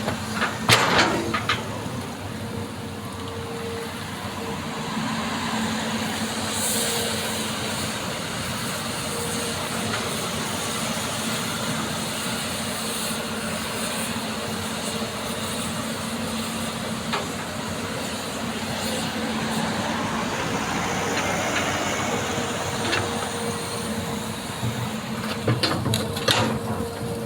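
Hitachi excavator running steadily at work, with a few sharp clanks and knocks about a second in and again near the end.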